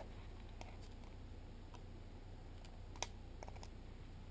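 Light clicks of the small parts of a Nokia Lumia 925 phone being handled during disassembly, a few scattered taps with one sharper click about three seconds in, over a faint low hum.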